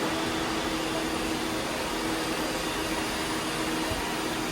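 Several robot vacuum cleaners, Roombas among them, running at once: a steady whirring noise of motors and brushes with a low steady hum.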